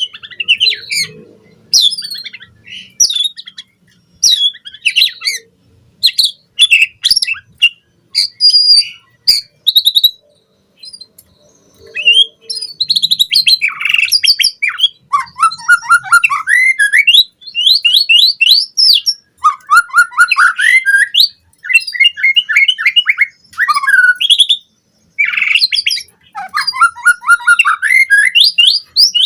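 White-rumped shama (murai batu) singing a loud, fast and varied song: short sharp chirps and whistles at first, then after a brief pause, long runs of quick repeated notes sliding downward.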